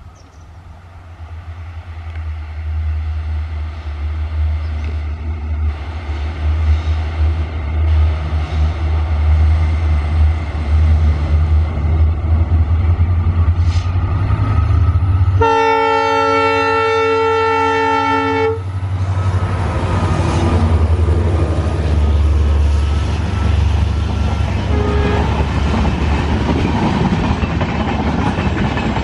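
WDP4D diesel locomotive approaching and passing, its engine rumbling and growing louder over the first few seconds. About fifteen seconds in it sounds its horn, a chord of several tones lasting about three seconds. After that the LHB coaches roll past with a steady rumble and wheel clatter.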